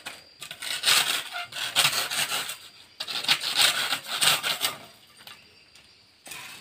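Lumps of mangrove charcoal being sawn back and forth with a long blade to cut them to an even size: rapid rasping, scraping strokes in two runs of about two seconds each, stopping about five seconds in.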